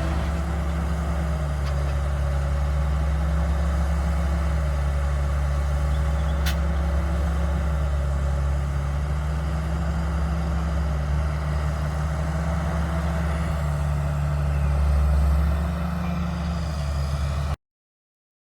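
Tractor diesel engine running steadily, its pitch drifting gently up and down. There is a faint click about six seconds in, and the sound cuts off abruptly near the end.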